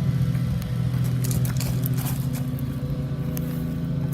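Electronic sound module in a Traxxas Slash RC truck playing a simulated engine idle: a steady low engine drone held at one pitch. A few light clicks and crackles sound over it in the middle.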